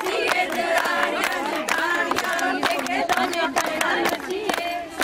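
A group of women singing Punjabi boliyan together with steady rhythmic handclaps, about two to three claps a second, in the style of giddha.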